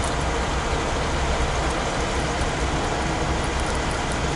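Steady rumble of traffic and engine noise heard inside a car's cabin, with no distinct events standing out.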